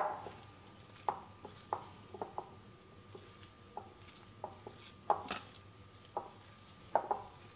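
Hand mixing crumbly gulab jamun dough in a glass bowl: irregular soft clicks and knocks of fingers and dough against the bowl, a few louder knocks about five and seven seconds in. A steady high-pitched tone sounds throughout.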